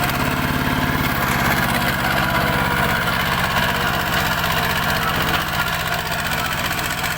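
Single-cylinder diesel engine of a two-wheel walking tractor running steadily near idle, with a fast, even firing beat.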